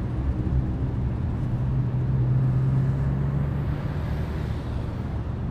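Car engine running, heard from inside the cabin: a steady low drone.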